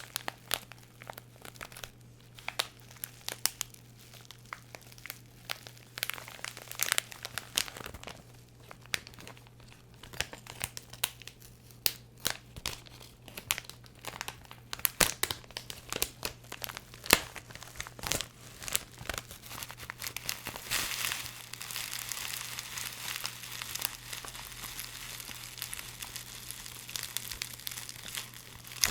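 Close-up crinkling and crackling of crinkly packaging being handled, in quick irregular crackles that turn into a denser, steadier rustle about two-thirds of the way through.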